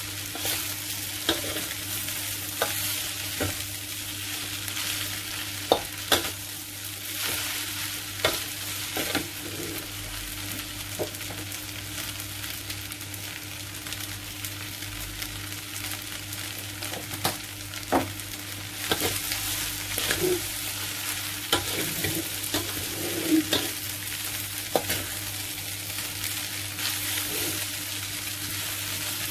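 Rice noodles and vegetables stir-frying in a steel wok: a steady sizzle, with frequent sharp clicks and scrapes as the spatula and chopsticks strike and toss against the metal pan.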